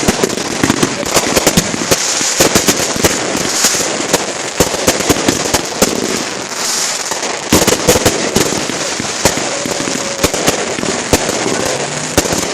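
Fireworks and firecrackers going off in a dense, irregular barrage: many rapid sharp pops and bangs overlapping one another.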